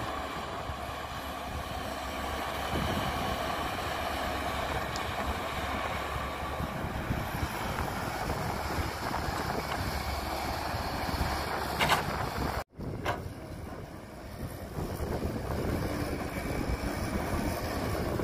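Caterpillar hydraulic excavator's diesel engine running steadily under load as it digs soil and swings it into a dump truck. Sharp knocks stand out around the middle, with a split-second dropout between them.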